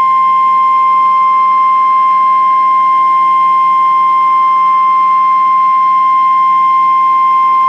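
Emergency-alert warning tone: a single steady, loud 1050 Hz alarm tone of the kind used by NOAA Weather Radio and the Emergency Alert System, held unchanging and cutting off abruptly at the end.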